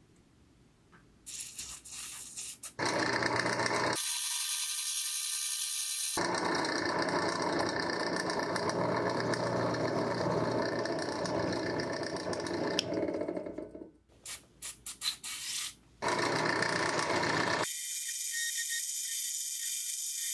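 Drill press running, its twist bit cutting into a metal bar, in several short clips that start and stop abruptly. Near the end, a steady hiss of lubricant sprayed from an aerosol can onto the hole.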